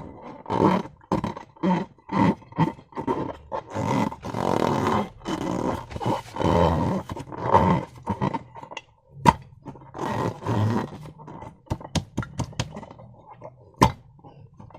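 Slime and balloon rubber being squeezed and worked by hand, making irregular wet squelching and rubbery rubbing sounds, then a few sharp clicks in the last several seconds.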